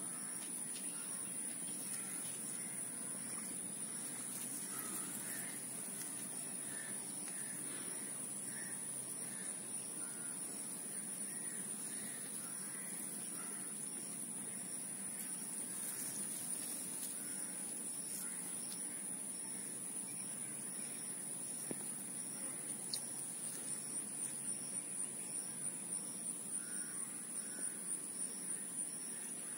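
Outdoor insect chorus, a steady high-pitched drone that turns into a pulsing chirp about twice a second near the end. Bird calls repeat for several seconds in the first half.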